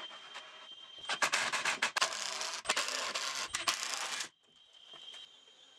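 Cordless driver driving a screw into the wooden side of a cabinet: a loud run of about three seconds, broken by two short pauses, that stops suddenly.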